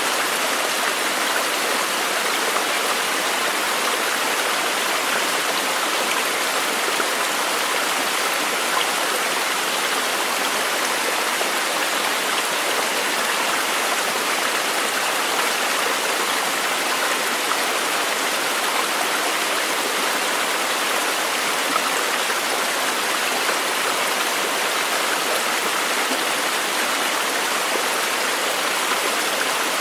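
Running water of a stream, a steady even rush without breaks or changes.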